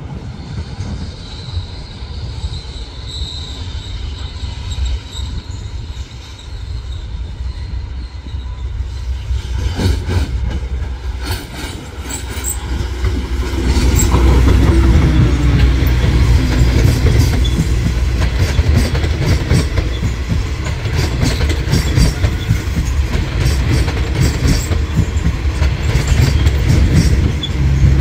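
Electric commuter multiple-unit train approaching and passing close by: a thin wheel squeal at first, then the rumble and clicking of wheels over rail joints swells about ten seconds in and is loud from about fourteen seconds on.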